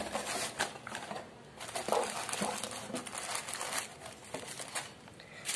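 Plastic-wrapped packets and small cardboard boxes of craft supplies rustling and crinkling as hands shuffle them into a cardboard box, in irregular bursts with a few light knocks.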